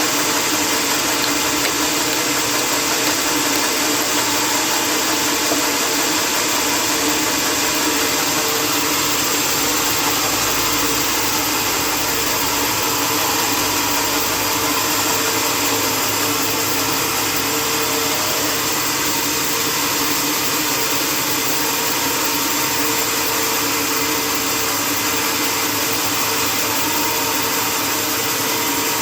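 Sawmill machinery running steadily: an even, loud mechanical noise with a steady hum underneath and no breaks.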